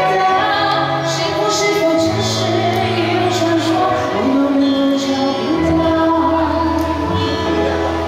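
Live Chinese traditional ensemble of guzheng, pipa and erhu playing a pop-song arrangement, with a woman singing the melody.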